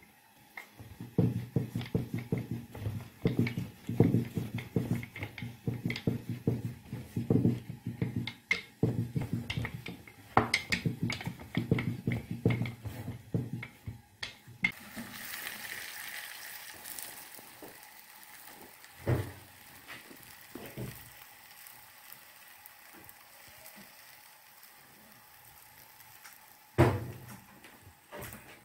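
Wooden rolling pin rolling out a potato-stuffed paratha on a floured wooden board: a quick, uneven run of rolling rumbles and small knocks for about the first half. After that a steady hiss takes over, with a few single knocks.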